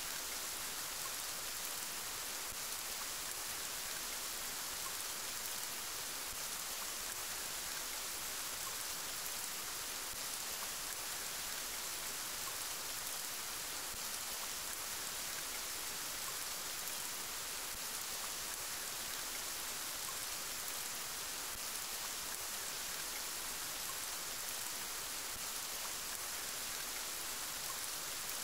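Steady rain falling, an even hiss with no thunder and no change throughout.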